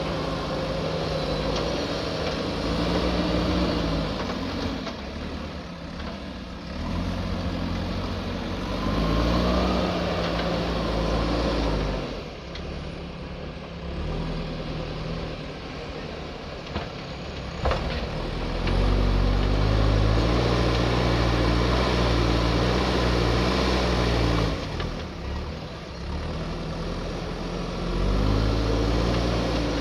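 JCB backhoe loader's diesel engine working under load, revving up and dropping back several times as the machine digs and moves. There is one sharp knock a little past halfway.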